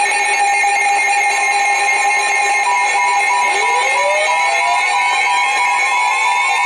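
Emergency Alert System attention signal: a loud, steady two-tone electronic alert tone of several held pitches, with rising pitch glides sliding in about three and a half seconds in.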